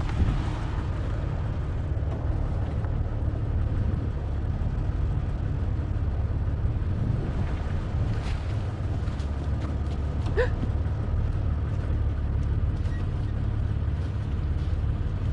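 Motor vehicle engine running steadily, a low rumble, with a short rising squeak about ten seconds in.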